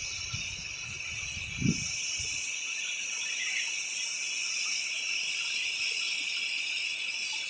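Steady high-pitched chorus of insects buzzing. A low rumble on the microphone fills the first two seconds, with a bump near two seconds in.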